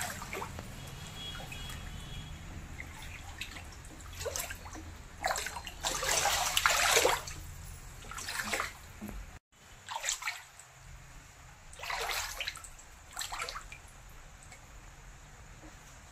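Floodwater that has run into a house sloshing and splashing in irregular bursts. The loudest splash comes about six to seven seconds in, and the sound cuts out for a moment about halfway through.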